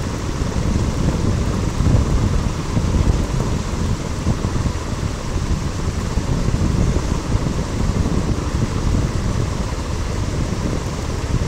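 Heavy rain falling on a paved street, a steady rushing noise with a strong low rumble.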